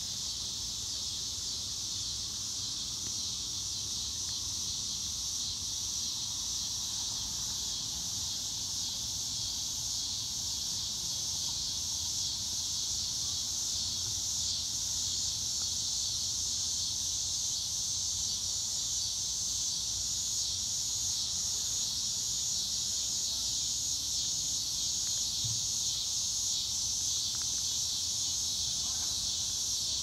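A chorus of cicadas singing: one steady, high-pitched drone that never breaks, growing slightly louder about halfway through.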